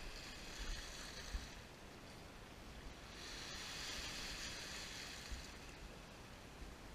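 Small sea waves breaking and washing back over a pebble beach, a soft hiss that swells most strongly with one wave about three to five seconds in, with low wind rumble on the microphone.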